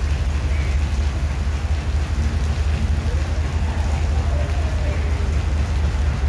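Steady low rumble of a WDM3D diesel-electric locomotive as it approaches slowly while shunting, with an even hiss like rain over it.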